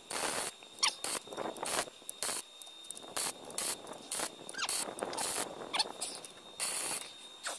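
MIG welder tack-welding a mild steel exhaust pipe to a stainless steel muffler: a run of short, irregular crackling arc bursts with brief pauses between, and a few squeaky chirps among them.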